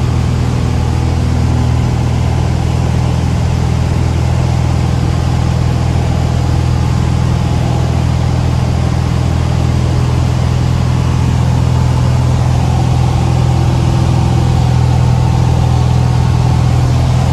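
Cessna light aircraft's piston engine and propeller running steadily in flight, heard from inside the cockpit.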